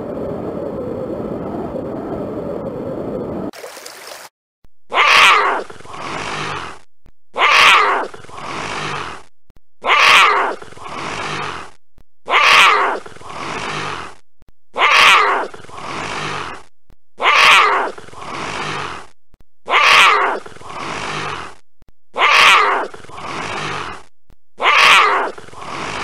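Wind blowing steadily, cutting off after about three and a half seconds. Then a jaguar calling: nine roars evenly spaced about two and a half seconds apart, each starting sharply and trailing into a softer second part.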